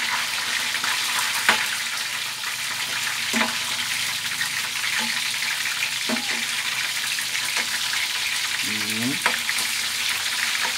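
Breaded chicken drumsticks sizzling steadily as they fry in hot oil in a pan. A spatula knocks and scrapes against the pan every second or two as the pieces are turned.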